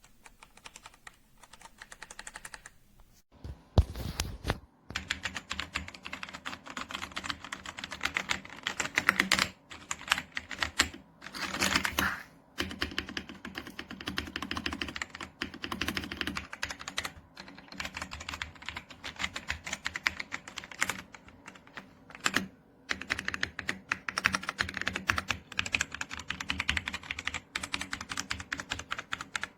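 Typing on an AJAZZ AK820 75% mechanical keyboard: rapid runs of clacking keystrokes. They start faint and grow louder after about three seconds, with a couple of short pauses.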